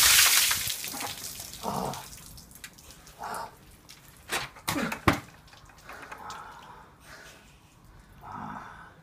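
A bucket of ice water pouring over a person's head and splashing onto paving, loud at first and dying away within about a second and a half into dripping. Then a few short gasps from the drenched person, and two sharp knocks about four and five seconds in.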